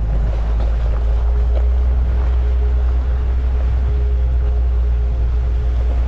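Wind rumbling over the microphone of a camera mounted outside a Ford Bronco as it drives a gravel trail, the vehicle running with a faint steady hum.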